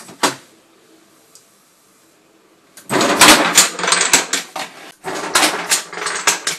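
A home-made chain-reaction contraption going off: one sharp click about a quarter second in, then from about three seconds a loud, fast clatter of many small hard knocks, with a short break near five seconds, as wooden Jenga blocks topple in a row and parts knock their way along the chain towards the cat food.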